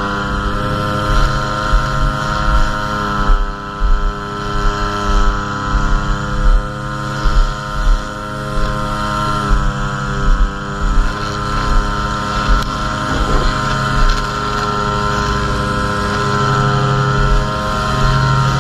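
String trimmer engine running at high speed while edging grass along concrete borders. Its pitch dips briefly about three seconds in and again near ten seconds. Low, uneven thumps of wind buffet the microphone.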